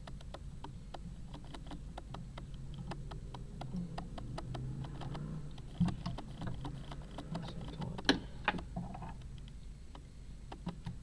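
Rapid, irregular clicking of a video camera's autofocus hunting for focus, several clicks a second, with a few louder ticks about two-thirds of the way through.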